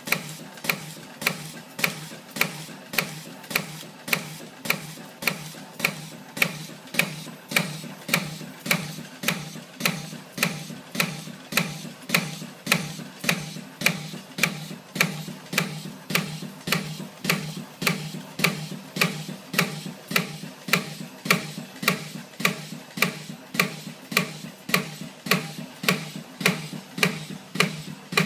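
AIM 1500 CNC piston ring coiling machine running in production. A sharp click repeats evenly about one and three-quarter times a second, one for each ring made, over a steady low machine hum.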